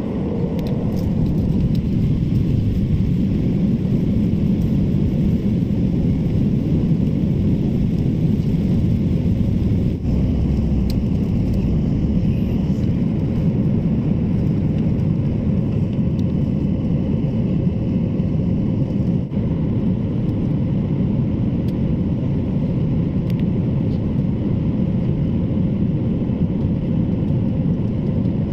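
Inside the cabin of a Boeing 737 MAX during takeoff: the jet engines at takeoff power with the rumble of the roll and climb, a loud, steady low roar that builds over the first couple of seconds and then holds.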